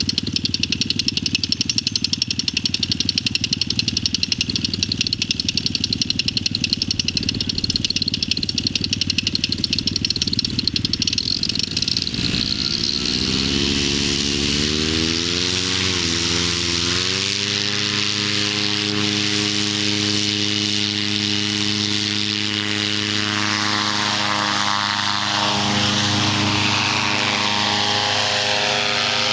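Paramotor engine idling with a rapid putter, then opened up about twelve seconds in. Its pitch rises, dips once, and settles into a steady full-power run with propeller noise for the takeoff run and climb-out.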